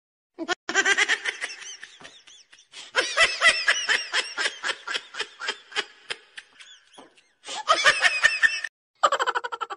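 Laughter: several bouts of quick, pulsed ha-ha-ha, some of them high-pitched, broken by short pauses.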